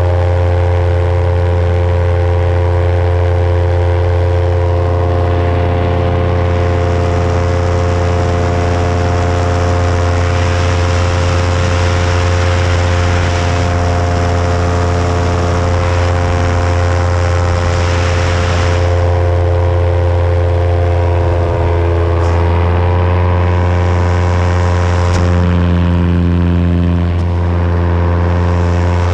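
Paramotor engine and propeller running at steady power, a loud drone that holds one pitch. Wind rushes over the microphone, heaviest through the middle stretch.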